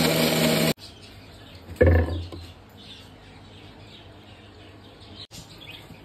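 Electric mixer grinder running with a steady, loud whirr and hum that cuts off abruptly under a second in. A thump follows near two seconds, and birds chirp faintly in the background.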